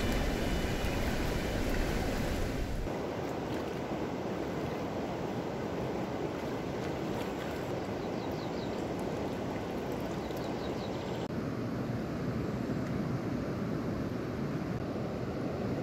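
River water running over a shallow stony bed: a steady rushing noise.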